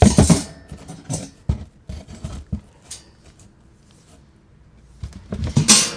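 Handling noises: rustling and a few light knocks, with a quiet stretch in the middle and more rustling near the end.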